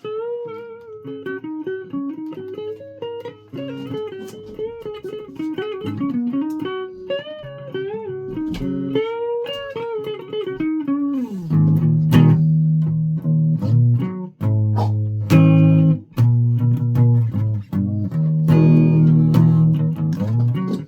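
A guitar played solo: for about the first eleven seconds a single-note melody line with string bends sliding the pitch up and down, then louder, lower notes and chords rung out, with short breaks between them.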